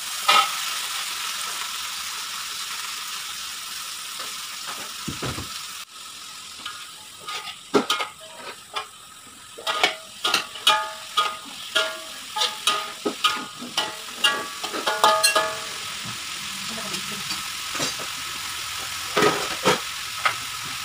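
Shredded cabbage dropped into a hot oiled wok, with a loud burst of sizzle as it lands, then frying steadily. Through the middle, a metal spatula stirs and tosses it, clanking against the wok about twice a second, with a few more clanks near the end.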